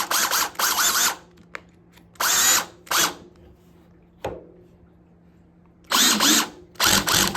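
20-volt Master Mechanic cordless drill run in about seven short trigger bursts, its motor whining up and stopping each time, as the drill bit is locked into the chuck. A single click comes near the middle.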